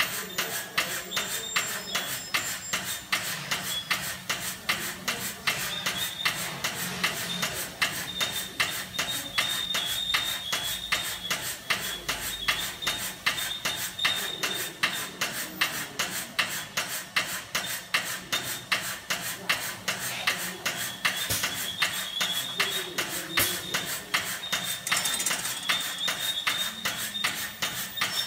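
Automatic pancake and spring roll wrapper machine running: an even, rhythmic clacking of about two or three clicks a second over a steady low hum, with a thin high tone that comes and goes.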